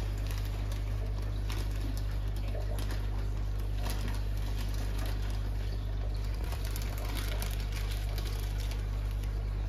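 Steady low electric hum of an aquarium's internal filter pump, with the rush of water and scattered small clicks and splashes over it.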